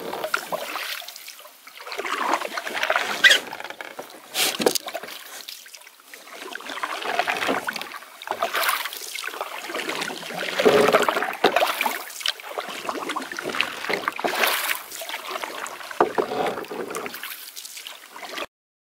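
Canoe paddle strokes through calm lake water: a swish and trickle of water with each stroke, rising and falling about every two seconds, with a few sharp knocks. The sound cuts off just before the end.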